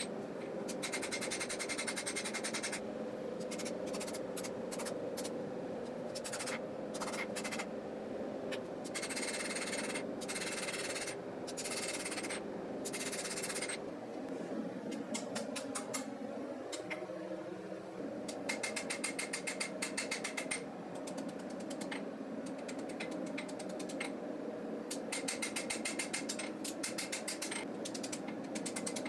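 Hand forging a knife blade: quick runs of hammer blows ringing on hot steel on the anvil, peening material toward the heel, with a pause about halfway through, over a steady hum.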